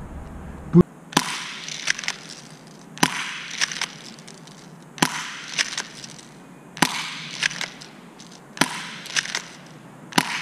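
FN FNS-9 airsoft pistol fired about six times, roughly one shot every two seconds, each shot a sharp crack with a brief hiss. Each is followed by smaller snaps of BBs striking a plastic target, which they break apart.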